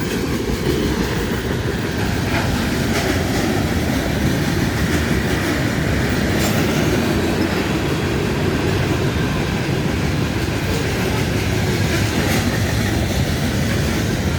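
Train rolling past: a steady rumble of rail cars on the track, with a few sharp wheel clacks.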